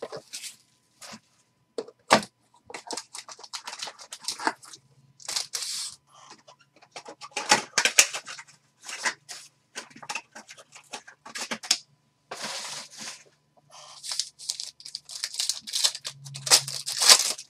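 Foil trading-card pack wrappers crinkling and being torn open, in quick irregular bursts of crackle, as the cards inside are pulled out and handled.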